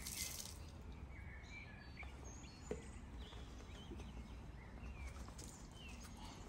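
Faint garden ambience: scattered short bird chirps over a low, steady wind rumble, with one soft knock a little under three seconds in.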